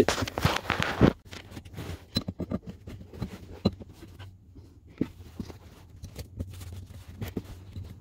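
A brief loud rustle ending in a knock about a second in, then scattered small clicks and scrapes of pliers and fasteners against the aluminum brake pedal cover as its nut is held and tightened.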